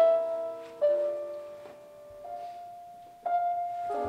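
Slow, soft piano music: a chord struck, then single notes and chords every second or so, each left to ring and fade.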